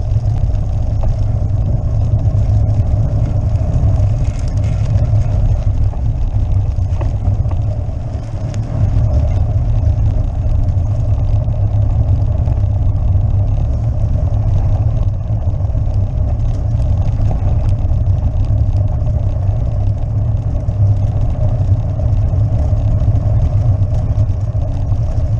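Constant loud rumble and rattle of a road bike juddering over cobblestones (pavé), picked up by an action camera on the rider that shakes with every stone. The loudness dips briefly about eight seconds in.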